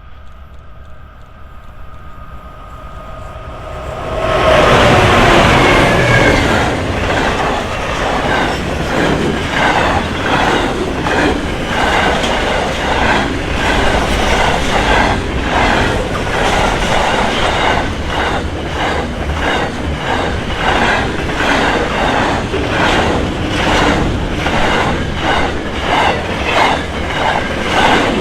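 Diesel-hauled freight train passing close by: a faint approaching engine hum swells into the loud pass of the locomotives about four seconds in. A long run of wagons follows, their wheels clacking over the rail joints in a steady rhythm.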